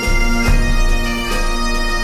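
Bagpipes playing a tune over their steady drone, with a low rumble in the first second or so.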